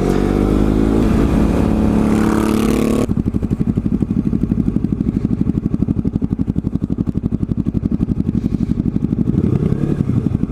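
Motorcycle engine running, with wind hiss on a helmet-mounted mic. About three seconds in, the hiss cuts off suddenly and the engine goes on as a steady, rapid pulsing beat.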